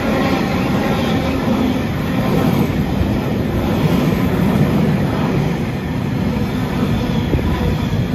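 A freight train's bogie hopper wagons rolling past close by: a loud, steady rumble and rattle of steel wheels on the rails.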